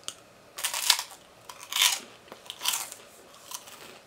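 Chewing a crunchy puffed rice cake: about four crisp crunches, roughly a second apart.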